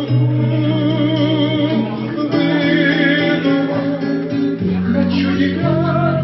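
Acoustic guitar playing an instrumental passage between sung verses, with sustained melody notes over it.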